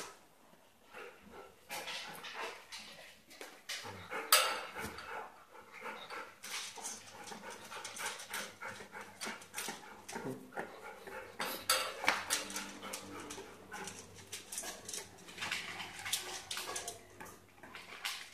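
A dog eating dry food from a stainless steel bowl: irregular crunching and chewing, with its muzzle knocking the metal bowl, and louder clatters of the bowl about four seconds in and again near twelve seconds.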